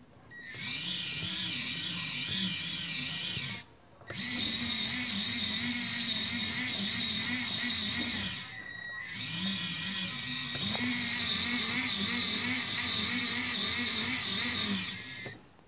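Small electric drive motors and gearing of a 1/16-scale Bruder CAT compact loader model running as it drives. The high whine wavers in pitch and comes in three runs of several seconds each, with brief stops between them.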